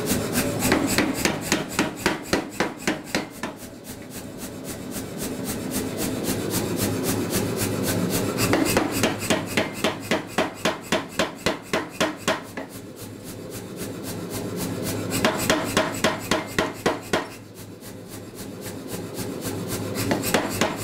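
Say-Mak SPH 60 self-contained air power hammer striking hot steel in bursts of rapid blows, about four to five a second, with the machine running steadily between bursts. The blows forge the bulged sides of a punched hammer head back down, turning the round eye oval.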